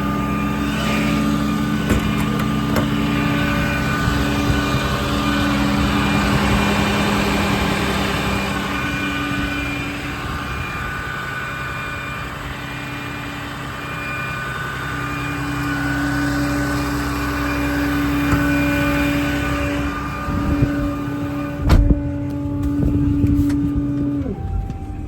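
Ram 5500's 6.7 L Cummins diesel engine running steadily, with a slowly shifting drone. Near the end there is a sharp thump, and the engine sound becomes quieter.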